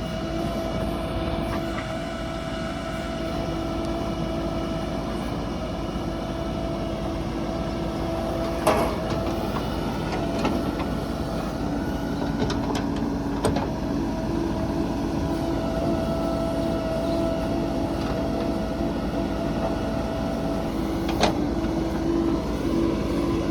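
JCB 3DX backhoe loader's diesel engine running steadily while it works mud, with a held whine that shifts pitch a little. Sharp knocks come three times, about 9, 13 and 21 seconds in.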